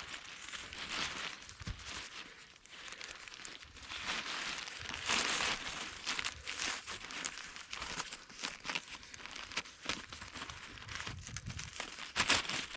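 Irregular rustling and crinkling with many small crackles, as of dry material being handled.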